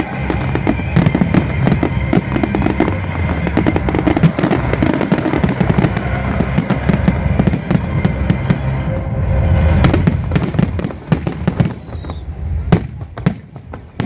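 Aerial fireworks going off in a dense barrage of bangs and crackle, thinning to a few separate bangs after about ten seconds.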